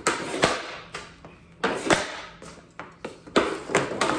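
Hockey stick slapping pucks off plastic floor tiles, shot after shot: a run of sharp cracks, several of them in pairs about half a second apart.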